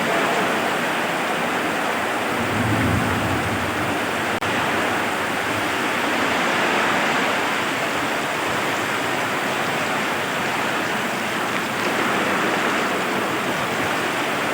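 Heavy rain pouring down in a steady, unbroken hiss, with a brief low rumble about three seconds in.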